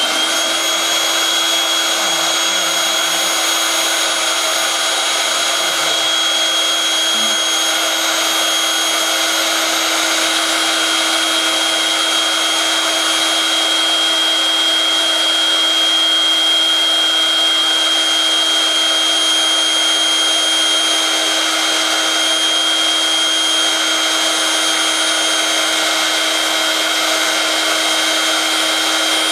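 Small electric air blower motor running steadily: a rushing of air with a constant high whine.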